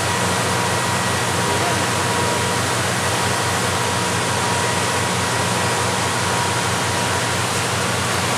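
Steady rushing noise of heavy rain and waterfalls pouring into the fiord, with a boat's engine running as a low hum underneath.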